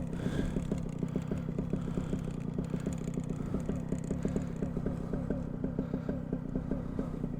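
Paramotor engine idling steadily, a fast, even low pulsing.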